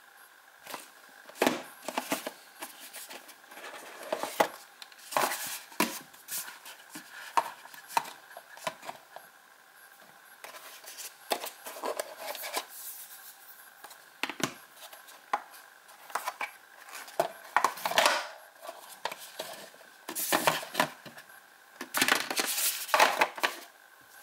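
Hands opening and handling a smartphone's cardboard box: scattered slides, taps and rustles of card, as the phone is lifted out of its tray and set down on a hard tabletop. The loudest handling comes near the end.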